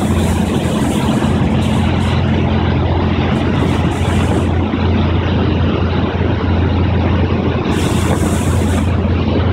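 Steady low motor hum over a dense rush of water and wind noise, with no break, and bursts of high hiss that come and go.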